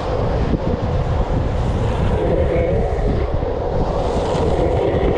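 Wind rushing over a fast-moving microphone over a steady low rumble of wheels rolling on asphalt during a downhill longboard run, with a wavering hum from the wheels that comes up in the middle.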